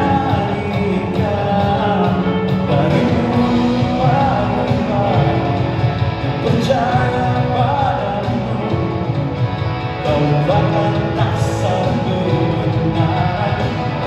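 Live band playing a song with a singer, in a rock-style arrangement.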